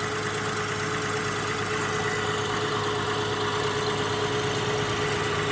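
2002 Acura MDX's 3.5-litre V6 idling steadily with a constant hum, on a freshly installed flex pipe and catalytic converter that the owner finds free of exhaust leaks.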